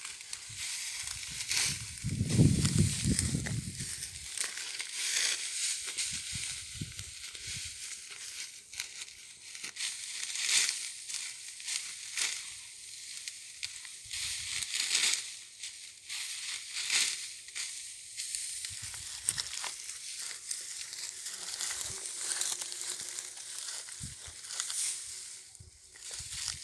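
Dry crackling and rustling, as of dry wheat stalks being handled or cut, with many small crackles; a low rumble for a couple of seconds near the start.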